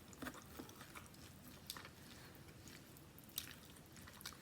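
Faint chewing and small mouth sounds of someone eating, with a few short soft clicks scattered through.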